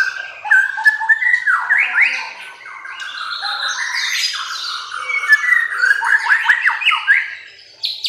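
Caged songbird singing a loud, fast, varied song of whistled sweeps and harsher notes, with a quick run of rising notes about six to seven seconds in.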